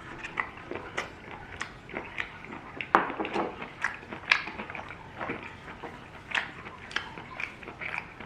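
Irregular small clicks and taps, several a second, with a louder knock about three seconds in.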